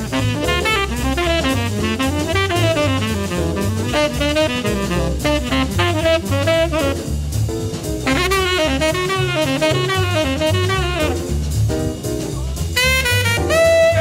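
1950s jazz recording: tenor saxophone improvising quick, winding phrases over walking bass and drum kit, pausing briefly a couple of times before coming back in.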